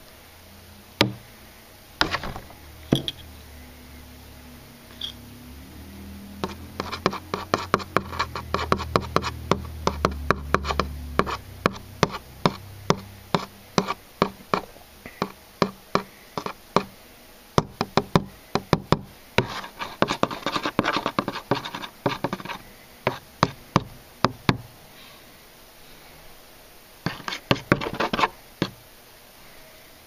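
Metal screwdriver tip tapping and scraping against the surface while stirring a drop of stop-leak sealant: runs of quick sharp clicks in several bursts, with short pauses between.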